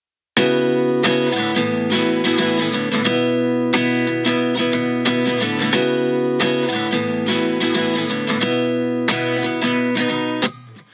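Background music: strummed acoustic guitar, starting suddenly about half a second in and dipping briefly near the end.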